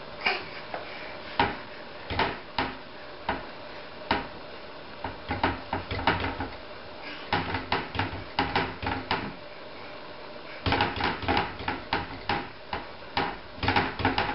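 Wooden kitchen cabinet doors knocking and rattling as a baby's hands slap and pull at them, in scattered single knocks and quick runs of knocks.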